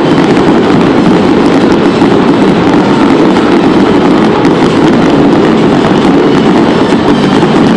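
Fireworks display in a dense barrage, many shells bursting at once, their booms and crackling running together into one loud, continuous rumble with no pause.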